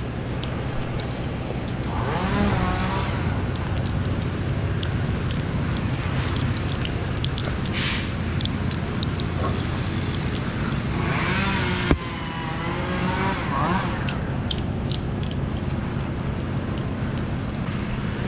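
An engine running steadily. A wavering, higher sound comes in twice, a couple of seconds in and again about two-thirds of the way through, and there is one sharp click shortly before that second spell.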